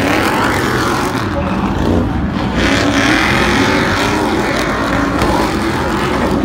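Several Stadium Super Trucks racing on a dirt stadium course, their V8 engines revving, rising and falling in pitch as they accelerate and pass.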